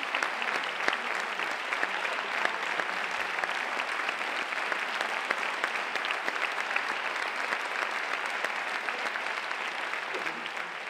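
Theatre audience applauding: dense, steady clapping from many hands that starts to die away near the end.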